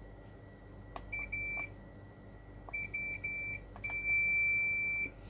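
Digital multimeter's continuity beeper: two short beeps, three more short beeps, then one long steady beep of about a second as the probes touch the circuit board, with light taps before some of the beeps.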